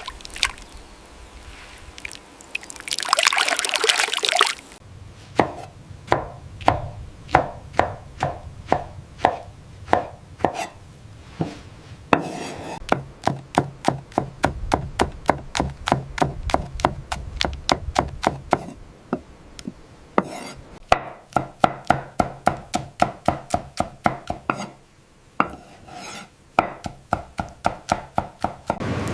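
A steady series of sharp knocks, about two a second at first and quicker, about three a second, from about halfway, with a short pause near the end. A brief rushing noise comes about three seconds in.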